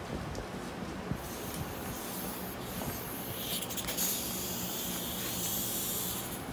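A steady, high hissing spray starts about a second in and runs for about five seconds, strongest in its second half, with a few light clicks early on and a faint low hum underneath.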